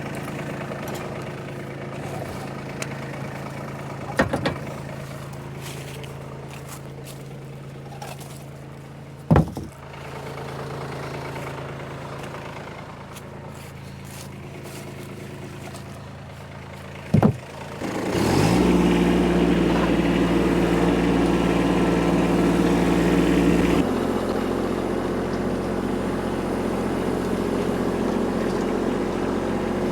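Kubota tractor's engine idling, with three sharp knocks or clicks along the way, then revving up a little past halfway and running steadily at higher throttle.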